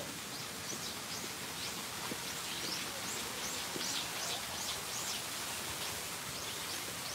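Small birds chirping: a steady run of short, high calls over a constant outdoor hiss.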